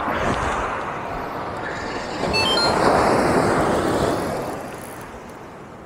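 Surf on a beach: a wave swells in about two seconds in and washes out again, fading toward the end. A few brief high chirps sound near the wave's peak.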